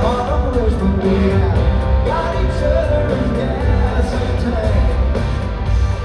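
Live country-rock band playing in a large arena: lead vocal over electric guitar, bass and a steady drum beat, heard from among the audience.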